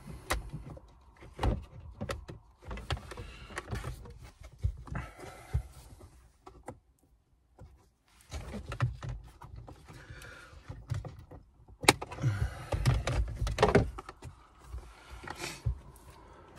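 Plastic shifter-area console trim of a Honda Civic being pried and unclipped by hand: an irregular run of clicks, knocks and rustling, with the loudest sharp click about twelve seconds in.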